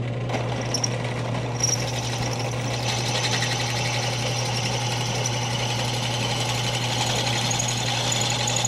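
Small benchtop drill press running with a steady motor hum while its bit reams out small bolt holes to enlarge them slightly. High scraping and cutting noise builds up from about a second and a half in.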